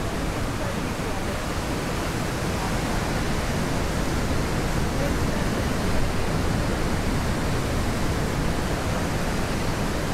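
Ocean surf surging and breaking on the shore, a steady loud rushing noise.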